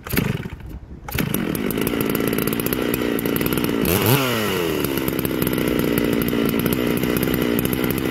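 Two-stroke chainsaw fitted with a big bore kit and advanced ignition timing being pull-started. A pull on the starter cord, then it fires and catches about a second in. It revs up and back down once around four seconds in, then settles into a steady idle. It starts easily.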